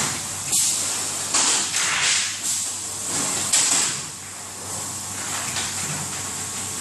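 Polyester film machine running with a steady low hum and a run of short hissing, sliding strokes, about five in the first four seconds, the loudest about three and a half seconds in, easing off in the second half.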